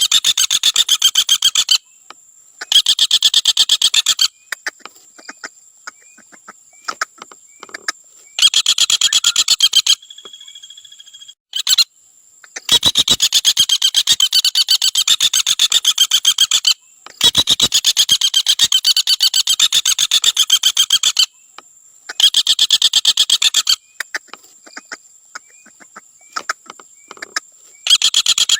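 Common flameback woodpecker giving its rapid rattling trill, repeated in bursts of about one to four seconds with short pauses between them. A thin steady high tone sounds faintly in the pauses.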